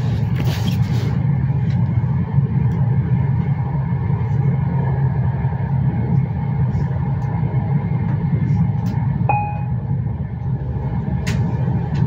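Steady low rumble of an InterCity passenger train running along the track, heard from inside the carriage. There is a burst of hiss in the first second, a few light clicks, and a short beep about nine seconds in.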